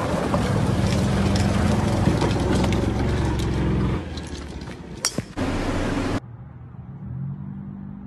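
Golf cart running as it drives along a gravel cart path: a steady motor hum with crackle from the tyres. About four seconds in the hum drops away, and a sharp knock follows about a second later. Near the end a different, quieter sound takes over.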